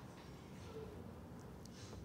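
Faint handling of cloud slime as hands press and shape it, with a couple of brief soft crackles in the second half.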